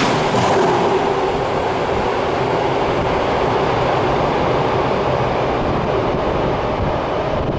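Osaka Municipal Subway 66 series train pulling out of an underground station. The tail car passes with a few wheel clacks at first, then its running noise slowly fades down the tunnel into a steady rumble.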